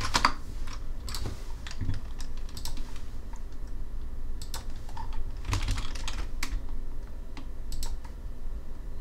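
Irregular clicking of a computer mouse and keyboard as mesh points are selected and dragged, the clicks coming in scattered clusters over a low steady hum.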